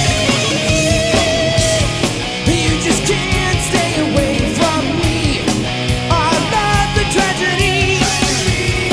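Rock band playing an instrumental stretch of the song: electric guitars over bass and drums, with a wavering, bending lead line.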